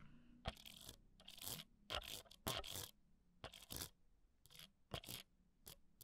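Metal ear pick scraping and scratching against a close microphone in short, irregular strokes, the ear-cleaning sound of ear-pick ASMR.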